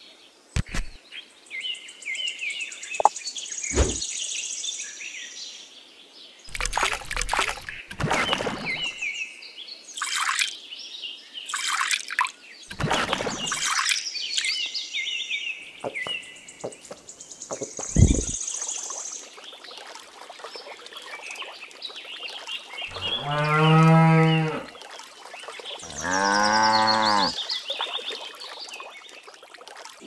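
Cow mooing twice near the end, two long calls a second or so apart. Before that, birds chirp throughout and there are several short knocks and scrapes, one sharp knock about eighteen seconds in.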